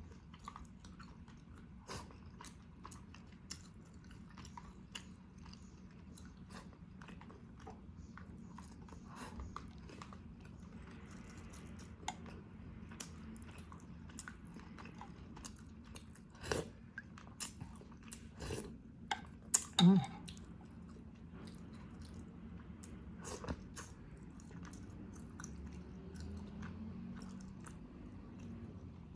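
Close-miked eating sounds: chewing and mouth clicks while eating sinigang na pampano, pompano fish in sour miso broth. The clicks come irregularly over a faint steady hum, with one louder short sound about twenty seconds in.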